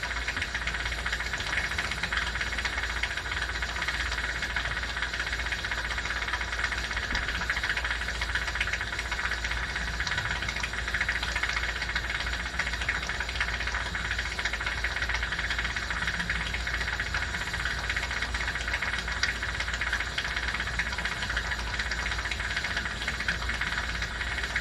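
Steady hissing noise over a constant low hum from jewelry bench equipment, holding unchanged throughout.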